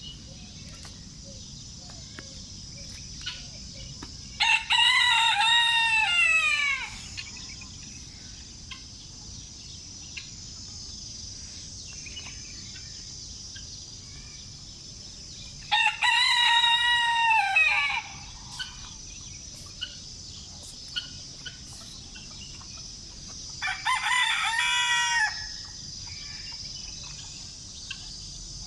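Rooster crowing three times, each crow about two seconds long with its pitch falling away at the end, over a steady high-pitched background drone.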